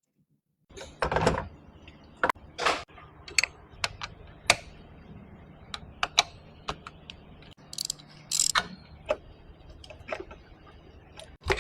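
Irregular sharp metallic clicks and clinks, about a dozen spread unevenly, from metal hand tools and parts being handled, over a faint steady hum.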